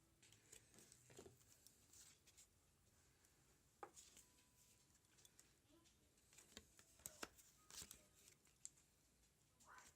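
Faint, scattered clicks and short rustles of baseball cards being handled and flipped through.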